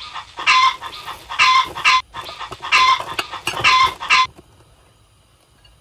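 Chicken clucking sound effect: a loud run of hen clucks in quick groups, cutting off a little over four seconds in.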